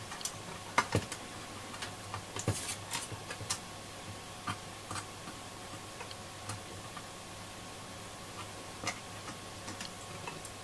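Irregular small metallic clicks and taps of pliers and fingers working at the pins of a Roberts R707 transistor radio's plug-in module, with several close together in the first few seconds and then sparser. A faint steady hum runs underneath.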